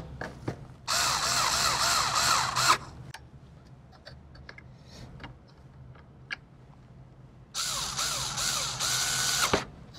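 Cordless electric screwdriver running in two bursts of about two seconds each, near the start and near the end, driving a server CPU heatsink's retaining screws down. Its motor whine wavers up and down as the screw tightens. Small clicks of the bit and screw come in between.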